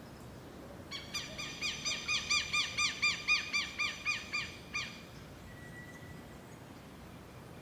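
A bird calling: a rapid series of arched, whistled notes, about five a second, swelling in loudness and then fading over nearly four seconds.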